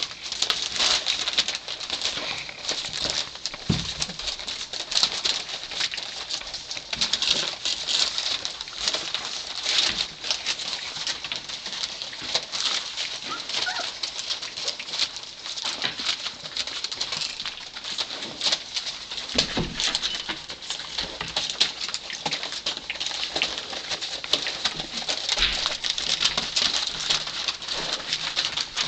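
A litter of 3½-week-old Labrador retriever puppies squeaking, whimpering and grunting continuously as they scramble and wrestle, with a steady crinkle of newspaper under their paws.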